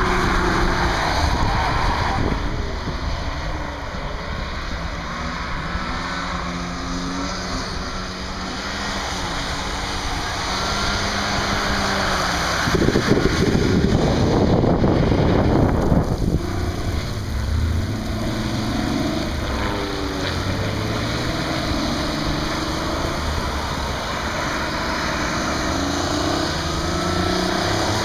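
Drift cars' engines, among them the Toyota AE86's supercharged 4A-GZE four-cylinder, revving up and down as they slide around the course. About halfway through comes a louder rushing noise lasting a few seconds.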